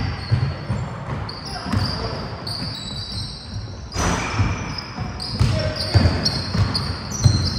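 Basketball dribbled and bouncing on the court during play: repeated low thuds at uneven spacing, mixed with players' and spectators' voices.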